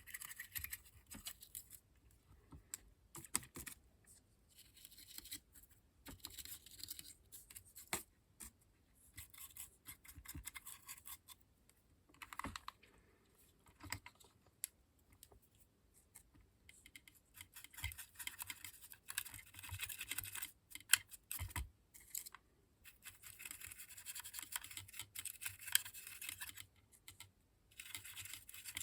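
Brush scrubbing weathering powder pigment onto a model locomotive in repeated short runs of scratchy strokes with brief pauses, plus a few light clicks.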